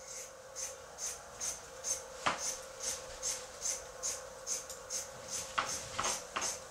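Linen canvas being pulled and shifted over a wooden stretcher frame on a wooden floor, rubbing and rustling, with a sharp knock about two seconds in and a cluster of knocks near the end. A soft hissing pulse repeats about two and a half times a second underneath.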